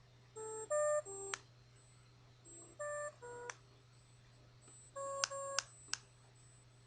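Mobile phone giving off unprompted short electronic beeps at changing pitches, in small groups of two or three about every two seconds, with sharp clicks among them, over a faint steady hum. These are the odd noises of a misbehaving phone.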